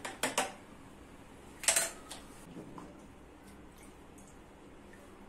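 Water splashed by hand onto the face while rinsing off shaving lather: three quick splashes at the start and a louder one just under two seconds in, followed by a couple of lighter ones.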